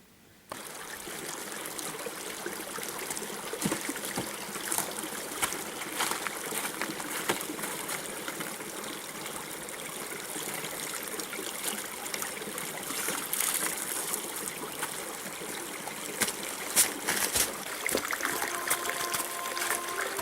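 Running water trickling steadily, cutting in suddenly about half a second in. A few sustained musical notes come in near the end.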